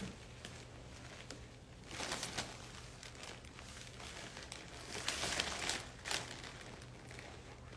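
Paper wrapping of a flower bouquet crinkling as it is handled, in short bursts about two seconds in and again around five seconds in.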